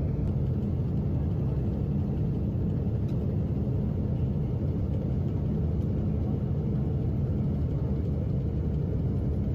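Steady low rumble heard inside the cabin of a Boeing 777 flying with its right Pratt & Whitney PW4000 engine wrecked by a fan-blade failure and its cowlings torn off.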